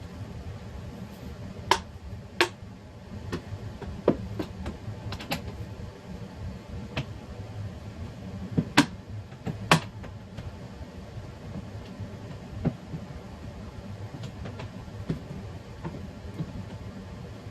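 Irregular clicks and knocks of hardware and panel parts being handled while fitting a door insert into an IKEA Kallax shelf. The sharpest ones come in the first ten seconds, with fainter taps later, over a low steady background noise.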